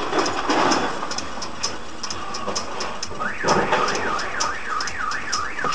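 A car alarm starts about three seconds in, a fast warbling tone sweeping up and down, over a rapid steady ticking and low traffic noise.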